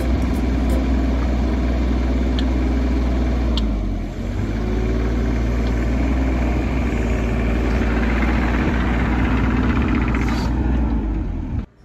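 Mini excavator's diesel engine running steadily close by, with a brief dip in level about four seconds in. The sound cuts off abruptly near the end.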